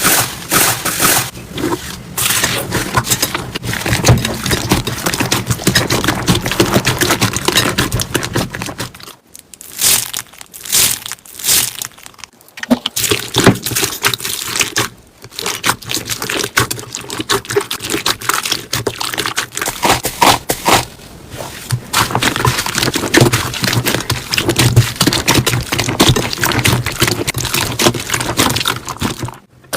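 Slime being pressed, squeezed and stretched by hand close to the microphone. It makes a dense run of small crackles and pops, broken by a few short pauses.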